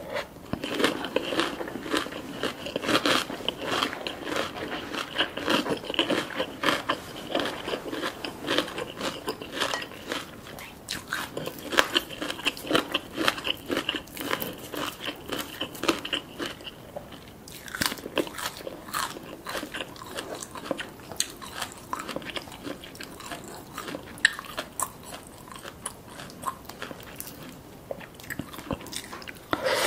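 Close-miked crunching and chewing of a spicy papaya salad with crispy toppings: crisp, crackly bites coming thick and fast.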